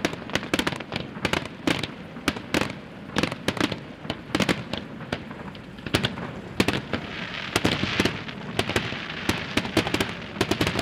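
Aerial fireworks display: shells bursting in quick, irregular succession, many sharp bangs a second, with a denser hissing wash around the middle.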